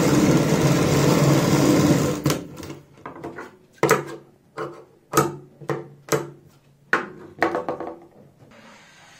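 Sewing machine running steadily for about two seconds as it stitches a cloth-and-buckram strip, then stopping. A string of separate sharp snips and clicks follows as the thread ends are cut with scissors and the strip is handled.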